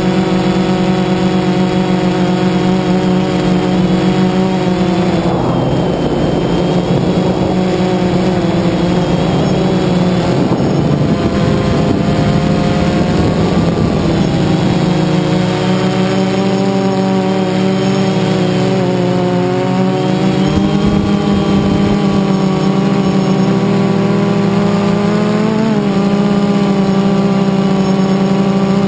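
DJI Phantom 2 quadcopter's four electric motors and propellers humming steadily, heard from the camera mounted on the drone itself. The pitch drifts up and down as the drone manoeuvres, with a couple of rushes of air noise.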